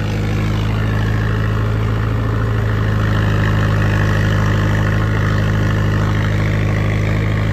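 Mahindra Yuvo 575 DI tractor's four-cylinder diesel engine running steadily, heard from the driver's seat, growing slightly louder over the first few seconds.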